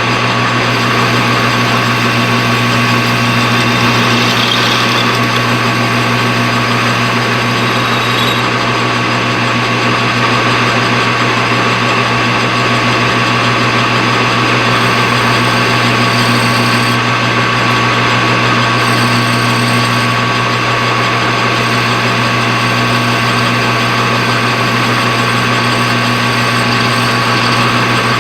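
Machine tool running steadily while a slow, hand-fed cut faces the bottom of a machined coaster. A constant motor hum and a steady high tone sound throughout, with no pauses.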